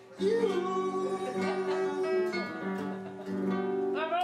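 A song with acoustic guitar and a singing voice, the voice sliding up into a long held note near the start.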